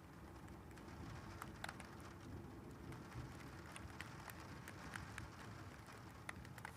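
Thunderstorm rain falling steadily, with scattered drops tapping sharply on a hard surface. Under it runs a low rumble that swells in as the sound begins.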